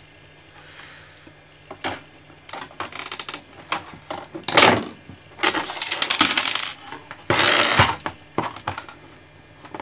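Hard plastic clicking and clattering, with several longer scraping rasps, as the dismantled Apple keyboard's plastic base and circuit board are handled while its cable is worked free.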